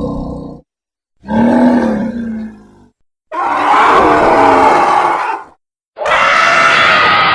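A run of dinosaur roar and grunt sound effects, one after another, each lasting one to two seconds and cut apart by brief dead silences. The tail of one call ends about half a second in, and three more follow.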